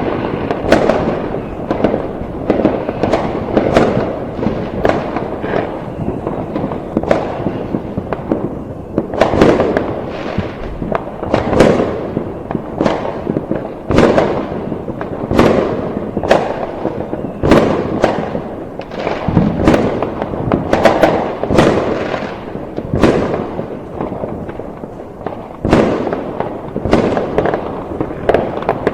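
Fireworks going off in a dense, irregular barrage: sharp bangs about once a second, over a continuous rumble of overlapping bursts.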